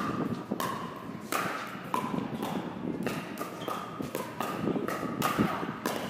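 Pickleball rally: paddles and court bounces striking the hollow plastic ball in a quick exchange. There are sharp, ringing pocks about every two-thirds of a second, nine or ten in all.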